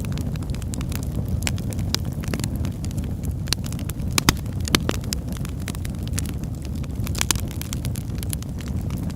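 Wood fire crackling in a fireplace: a steady low rush of flame with frequent sharp pops and snaps, the loudest pops a little over four seconds in.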